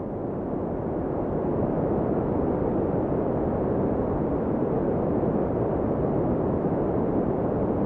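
Sea waves: a low, dense rush of surf that slowly swells in loudness.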